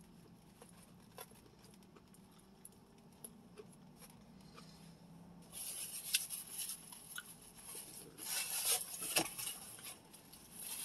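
Eating sounds close to the microphone: a few faint clicks over a low steady hum, then from about halfway a spell of crinkly rustling and sharp clicks from handling the food and its takeout container.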